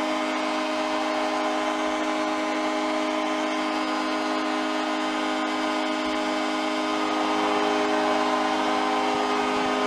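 Hockey arena crowd cheering and roaring for a series-clinching win, over the arena's horn sounding one long, steady blast; the cheering swells a little about seven seconds in.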